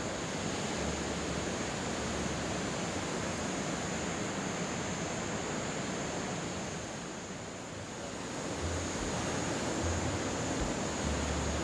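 Ocean surf breaking on a beach: an even rush of waves that eases about seven seconds in and then swells again.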